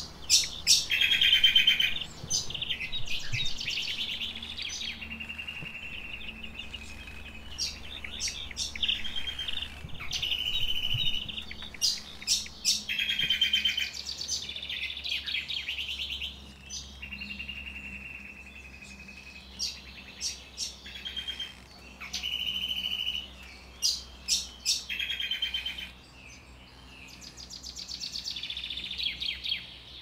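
Small songbird singing, repeating the same short phrase about every five to six seconds: a steady whistled note, then a quick trill, with sharp chirps in between.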